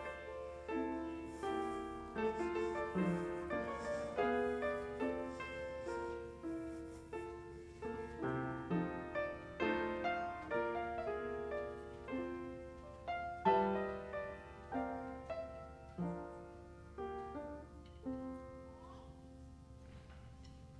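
Piano playing a gentle, unhurried passage of struck notes and chords that fade after each strike, thinning out and stopping near the end.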